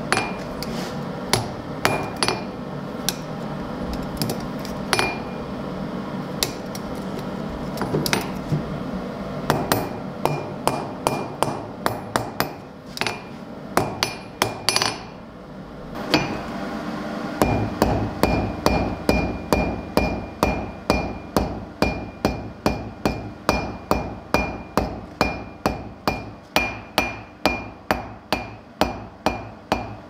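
Blacksmith's hand hammer striking hot iron on an anvil. The blows come irregularly at first, then after a short lull about halfway they settle into a steady quick run of two to three blows a second, each followed by the anvil's ring.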